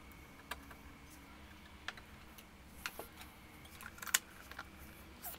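A handful of light, separate clicks and taps from hands handling the all-in-one computer's plastic back cover and metal stand, the sharpest about four seconds in.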